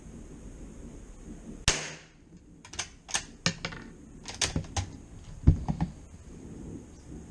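A single shot from a Zastava CZ 99 .22 LR bolt-action rifle, a sharp crack with a short ring-out, followed by the bolt being worked: a quick string of metallic clicks and clacks, the loudest clack about two-thirds of the way through.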